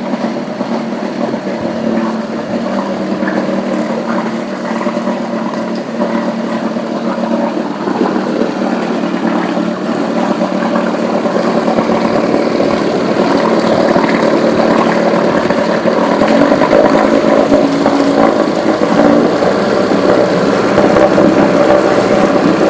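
Small 3 hp outboard motor running steadily. It grows gradually louder through the first half, and its pitch rises slightly past the middle.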